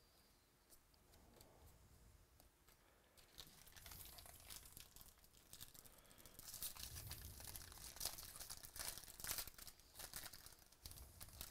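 A foil trading-card pack being torn open and its wrapper crinkled, starting about four seconds in after a quiet stretch.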